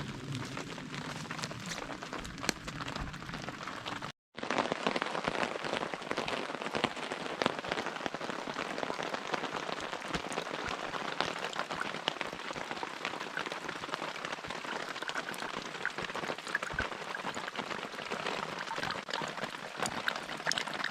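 Steady heavy rain with many separate drops ticking. About four seconds in the sound cuts out for an instant, and after it the rain is brighter and denser.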